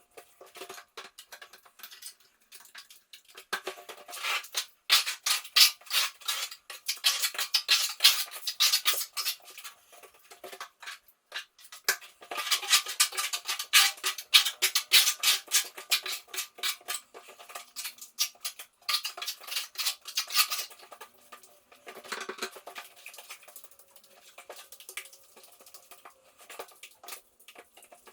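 A metal spatula scraping and clinking against plaster in quick, irregular strokes. The strokes come in two busy spells and thin out toward the end.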